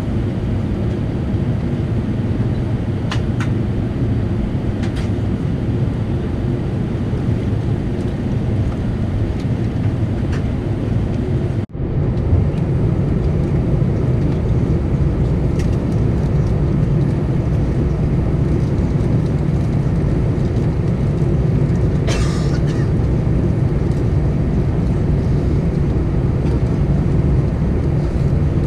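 Steady low rumble inside the cabin of an Airbus A319 taxiing, from its jet engines at taxi power and the airframe rolling over the taxiway. The sound drops out for an instant a little before the middle and is slightly louder afterwards. There is a brief rattle about two-thirds of the way through.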